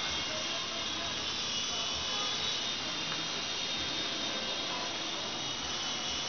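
6025 RC toy helicopter in flight, its small electric motors and rotor blades giving a steady high whine with a whirring hiss.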